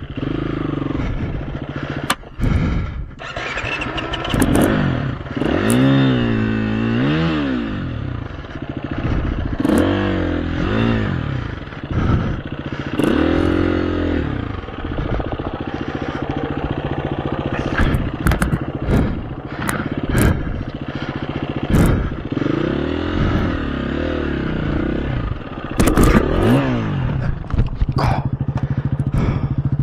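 KTM 350 EXC-F single-cylinder four-stroke dirt bike engine revving up and dropping back again and again under throttle, with frequent sharp knocks and clatter.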